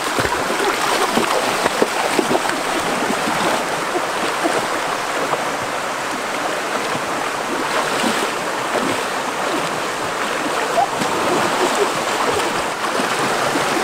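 Water sloshing and splashing steadily, with many small splashes and no break.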